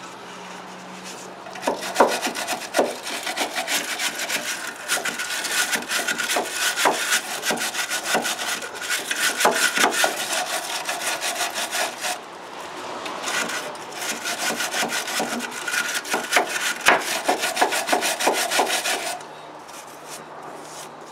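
Hand wire brush scrubbing grime off the Land Rover Discovery TD5's steel chassis at the rear air bag seat, in quick back-and-forth strokes. It starts about two seconds in, pauses for a moment near the middle, and stops shortly before the end.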